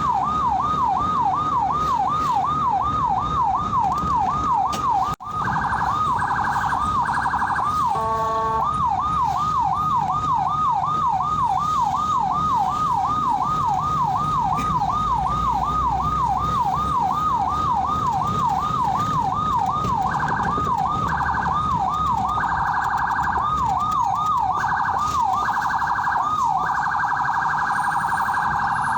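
Ambulance electronic siren in a fast yelp, its pitch sweeping up and down about three times a second. It switches briefly to other chopped tones a few times and, near the end, to a rapid warble. Vehicle road noise runs faintly underneath.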